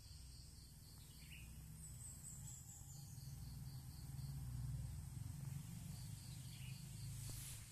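Small birds calling in a garden: a rapid run of short high chirps, about five a second, comes twice, and a falling series of very high notes comes a couple of seconds in. A low steady rumble runs underneath, and a brief rustle comes near the end.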